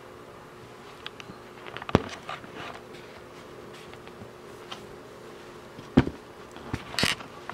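Kittens batting small game pieces around on a cardboard board-game board. A few sharp clicks and knocks come through, one about two seconds in and several close together near the end, over a faint steady hum.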